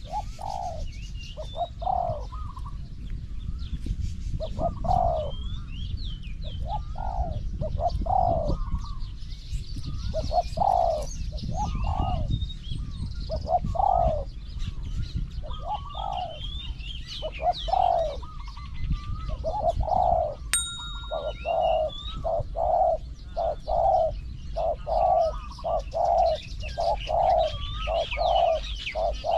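Spotted doves cooing: low coo notes in repeated phrases, coming faster, about two a second, over the last several seconds. Small birds chirp faintly in the background.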